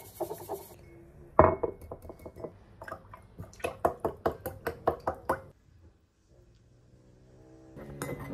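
A bamboo matcha whisk scrapes briefly against a ceramic mug, and a sharp knock follows about a second and a half in. Then milk glugs out of a carton into the mug in quick, even pulses, about five a second, for around two seconds before stopping.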